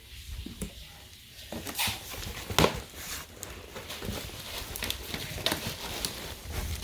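Crinkling and rustling of packaging handled and pulled open by hand, with many sharp crackles, starting about a second and a half in.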